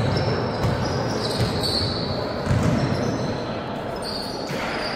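Basketball bouncing on an indoor court amid the hall's background noise, with a few short high squeaks over it.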